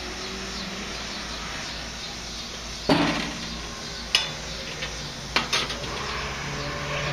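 Metal clanks from a gas grill being opened: one sharp clank about three seconds in, then three lighter metal clicks, two of them close together, around the cast iron Dutch oven sitting on the grate.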